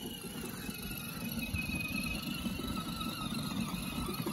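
12-volt ride-on toy Jeep Wrangler's electric drive motors and gearboxes whining steadily as it drives over grass, with a rough low rumble from the wheels. It grows louder as it approaches.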